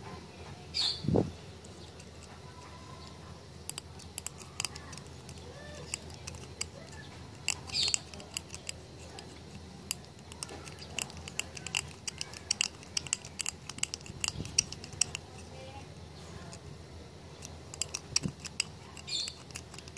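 Light, irregular metallic clicks and ticks from a steel pick or tweezer prying at the metal cover of a small slide selector switch, densest in the middle stretch, with a low thump about a second in.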